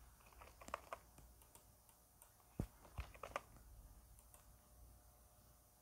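Faint computer keyboard keystrokes and mouse clicks, a scattered handful, the sharpest two about two and a half and three seconds in.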